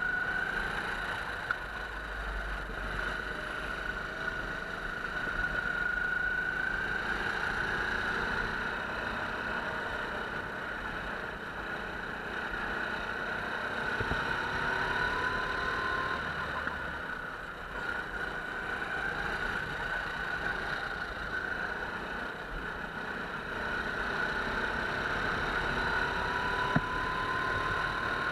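Go-kart engine running at speed, heard from on board, its pitch rising and falling gently with the throttle.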